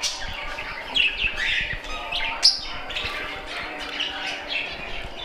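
A mixed aviary flock of small parrots (budgerigars, lovebirds and cockatiels) chirping and squawking over one another in a steady chatter, with one louder, sharper call about two and a half seconds in.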